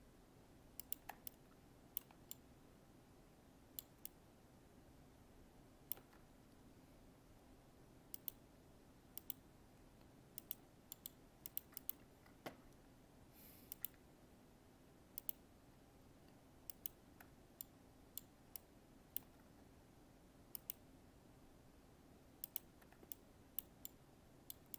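Faint, sharp clicks of a computer mouse at irregular intervals, some in quick pairs and runs, over a faint steady hum.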